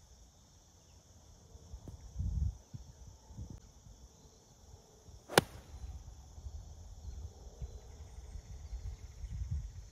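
A full 9-iron swing striking a golf ball: one sharp, crisp click about five seconds in, over a steady chirr of insects.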